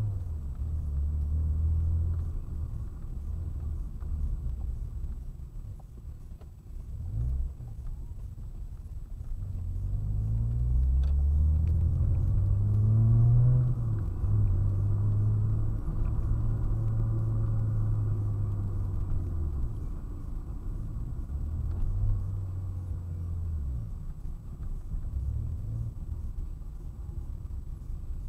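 Car engine and road rumble heard from inside the cabin. The engine note climbs as the car speeds up about ten seconds in, holds steady for several seconds, then drops away as it slows.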